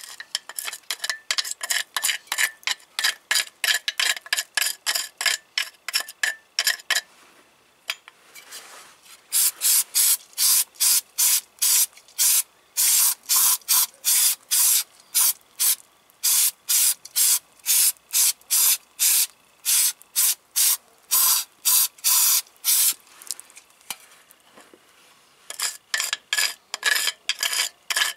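Rust being scraped and scrubbed off a brake caliper bracket and guide pin by hand, metal rasping on metal in quick back-and-forth strokes. The strokes run about three a second at first, stop briefly, then come back slower and harder, with another short pause near the end.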